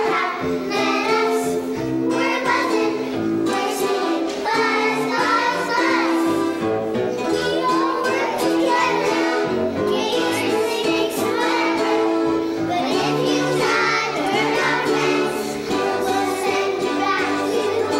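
Children singing a song over instrumental accompaniment with steady held notes.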